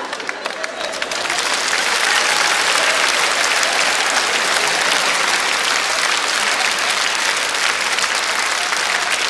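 Theatre audience applauding. The clapping swells about a second in and then holds steady.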